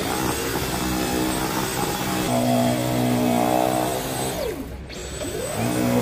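Cordless stick vacuum cleaner running with a steady motor whine that shifts in pitch about two seconds in. The motor winds down after about four and a half seconds, and a vacuum spins up again just before the end.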